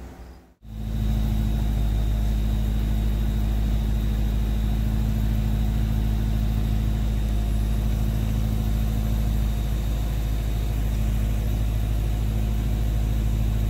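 A vehicle engine idling steadily and loudly at close range, starting abruptly under a second in after a brief dropout.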